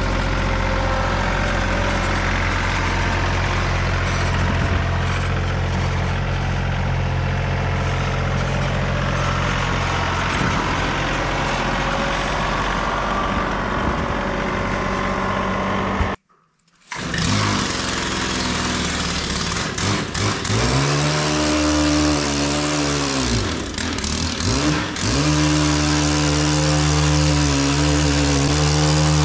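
John Deere 2038R compact tractor's three-cylinder diesel running steadily under load while pushing packed snow with a rear box blade. After a short break, a STIHL KM131R Kombi 4-MIX engine with a bristle-brush attachment revs up, dips and climbs again, then runs steadily at high speed sweeping snow.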